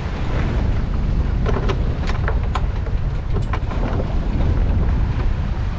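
Wind buffeting the microphone over water rushing past the hull of a sailboat under sail, with several brief sharp sounds in the middle.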